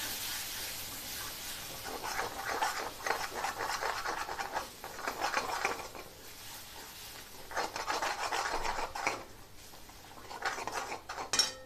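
A steel spoon stirring and scraping thick ground masala paste around a kadhai, in several spells of quick strokes with short pauses. The paste is being sautéed with spices in oil.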